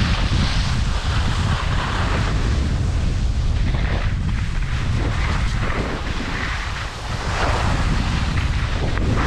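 Wind buffeting the microphone of a camera carried by a skier moving downhill, a steady heavy rumble, with the hiss and scrape of skis sliding on snow swelling and fading through the turns.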